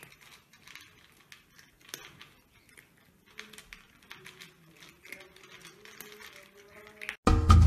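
Two cats crunching dry kibble from their bowls: irregular small crunches and clicks. Loud music cuts in abruptly near the end.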